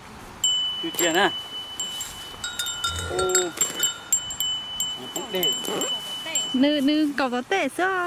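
A steady, high, chime-like ringing tone comes in about half a second in and holds for about six seconds. Short voice-like sounds come and go over it, more of them near the end.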